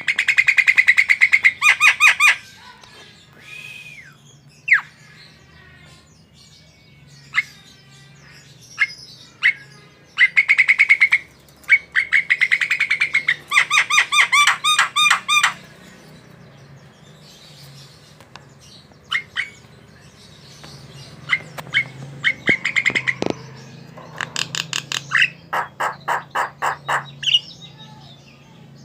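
Javan myna (jalak kebo) singing in full voice: bursts of rapid, repeated chattering notes broken up by single sharp calls.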